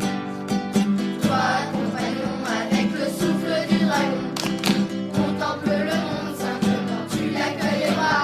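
Background song: strummed acoustic guitar with a beat, and singing that comes in about a second in.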